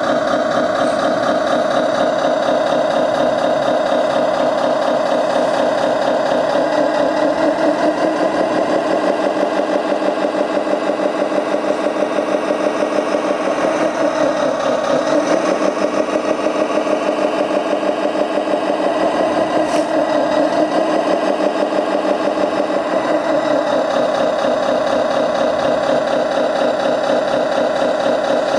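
Simulated truck diesel engine idling from the RC model's sound module, played through its small speaker: a steady, fast-pulsing idle whose pitch sags briefly a few times.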